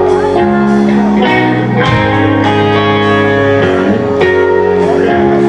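Live rock band playing the instrumental intro of a song: guitar chords changing every second or so over a beat of sharp drum and cymbal hits, loud and steady.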